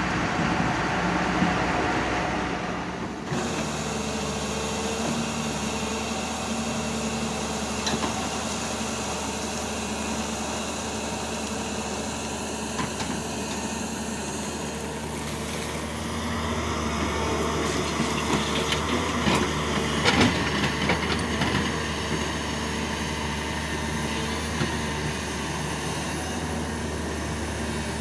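Hyundai 210 crawler excavator's diesel engine running steadily while it digs, working harder about halfway through, with a few sharp knocks of the bucket and machine. For the first few seconds a different engine noise is heard, then the sound changes.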